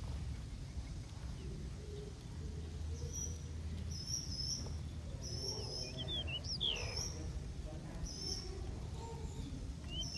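Small aviary birds giving short, high chirps again and again, starting about three seconds in, with a few quick falling notes partway through, over a steady low hum.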